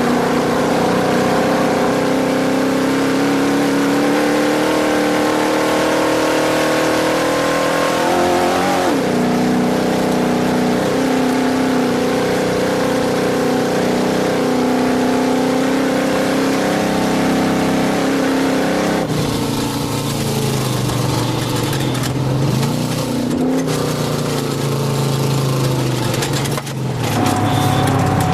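Off-road race truck's engine running hard at speed over a steady haze of road and wind noise, its note shifting about nine seconds in and dropping lower a little after halfway.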